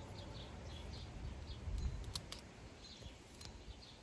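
A few sharp clicks and taps from the AirPods and their packaging being handled, about two seconds in, over a low rumble from a garbage truck. Birds chirp faintly in the background.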